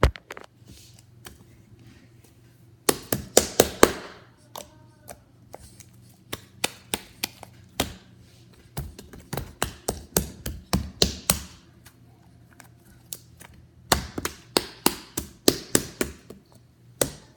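Slime being handled roughly and pressed hard, giving bursts of sharp clicks and pops, several a second, with short lulls between the bursts.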